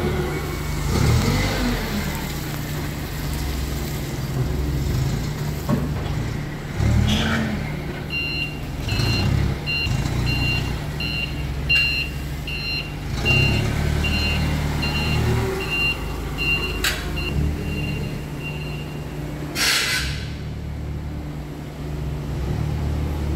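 Forklift engine running and working, with its reversing beeper sounding about one and a half times a second through the middle of the stretch. A short hiss of air comes near the end.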